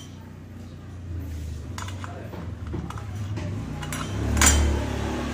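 Small metal parts of a circular saw clicking and clinking as the blade washer is fitted onto the blade arbor by hand, several separate clicks. A low rumble swells about four seconds in, under the loudest click.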